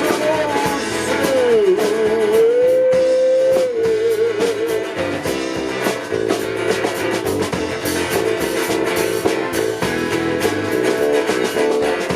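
Live band music with guitar and drums; a singer holds the word "soon" with vibrato for a few seconds near the start, then the guitar and drums carry on without vocals.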